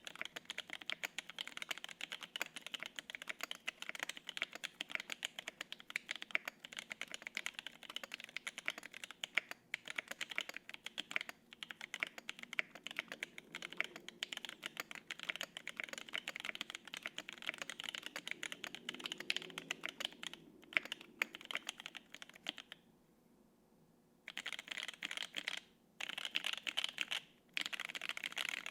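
Fast, continuous typing on a gasket-mount 75% custom mechanical keyboard with lubed, filmed Durock T1 67 g tactile switches, an aluminium plate and GMK keycaps. The keystrokes come in a dense stream, broken by a pause of about a second and a half near the end and two brief breaks after it.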